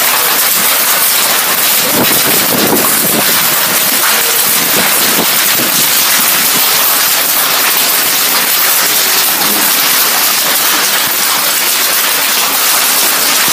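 Heavy rain pouring down in a loud, steady hiss, falling on a corrugated metal roof overhead.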